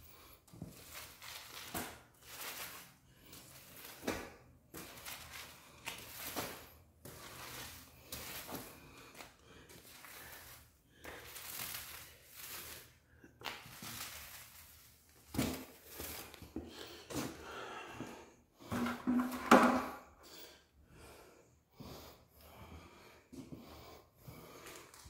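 Paint roller on a pole being pushed back and forth over rough concrete, spreading concrete glue in repeated swishing strokes. One louder burst about twenty seconds in.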